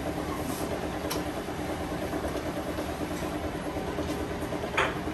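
Kitchen machinery running steadily with a low, even hum, and one sharp clatter near the end.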